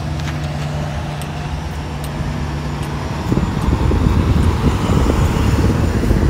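Road vehicle noise: a steady engine hum, then about three seconds in a louder, rougher rumble as an approaching truck draws near.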